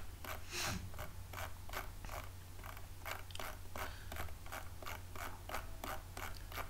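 Computer mouse scroll wheel turned steadily, ticking through its notches at about four clicks a second as a document is scrolled.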